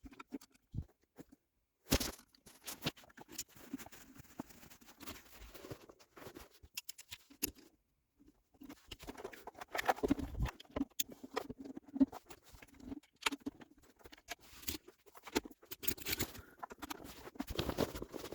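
Hands handling and refitting parts of a car's gear selector assembly: irregular small clicks, taps and scratchy rustling, with a couple of short pauses.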